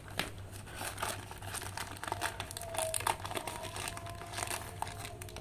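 Plastic packaging crinkling in the hands: a black plastic mailer bag and the clear plastic wrap of a wall hook being handled, with irregular rustles and crackles.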